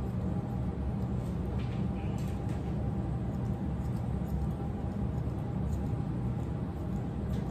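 A steady low hum throughout, with a few faint, sharp snips of grooming scissors cutting the dog's face hair.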